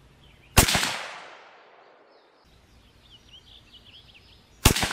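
Two shots from a Savage Axis bolt-action rifle, about four seconds apart, each followed by a fading echo.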